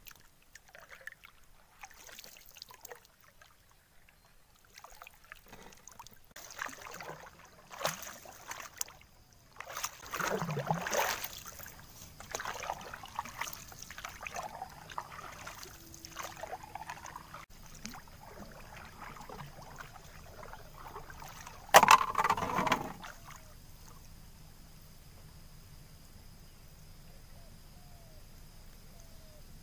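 Water sloshing and splashing around a wooden dugout canoe on a river, with irregular knocks against the hull. One much louder splash comes about three-quarters of the way through, followed by a faint steady hiss.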